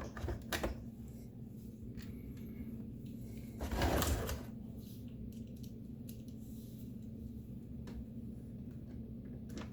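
Light handling noise from working on the coffee maker's plastic housing and screws: a few small clicks in the first second, a brief scraping rustle about four seconds in, and a couple of faint clicks later, over a low steady hum.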